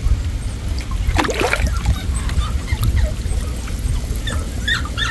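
Muddy water splashing briefly about a second in as an arm gropes in a fish hole under the bank, over a steady low rumble. Near the end a dog whimpers and yips in short high squeaks.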